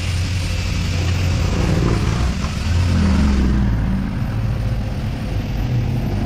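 A vehicle engine running with a steady low rumble. A hiss over it dies away about three and a half seconds in.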